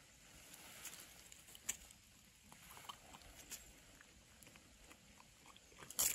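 Faint, scattered crunches and rustles of footsteps in dry fallen leaves, with a sharper crackle about two seconds in and a louder burst of crackling right at the end.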